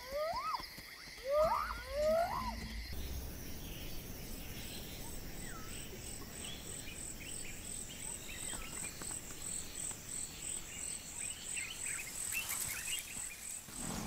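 Bush ambience: a high-pitched insect pulsing evenly about three times a second, with birds chirping. Near the start come four short rising calls from an animal.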